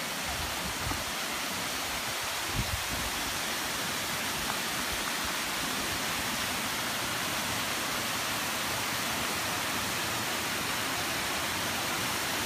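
Water pouring over a stepped limestone spillway into a pool: a steady, even rushing, with a couple of brief low bumps in the first three seconds.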